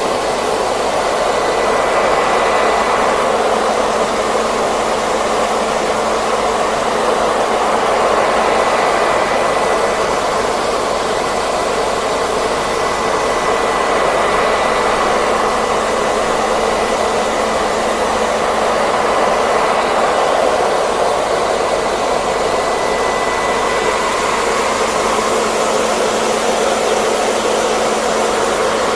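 Hair dryer running steadily: an even rush of blown air with a faint constant motor whine on top.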